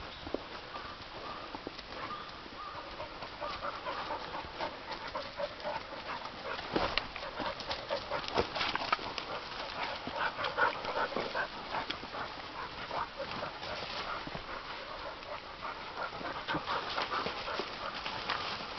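A bird dog panting close by, with crunching and rustling footsteps through leaf litter and undergrowth.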